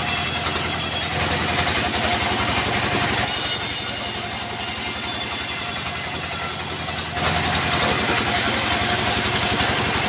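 Band sawmill running with its blade cutting through a slab of log as it is pushed through by hand. The sound is continuous and loud, with a steady low pulsing underneath, and its hiss drops about a second in, comes back about three seconds in and drops again about seven seconds in.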